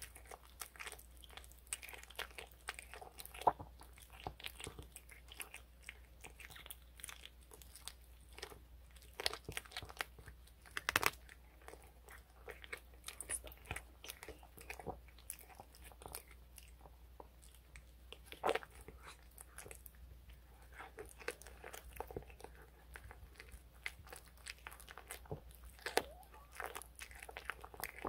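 A cat chewing raw quail leg, with irregular crunches of the small bones and wet mouth sounds, the loudest crunch about 11 seconds in.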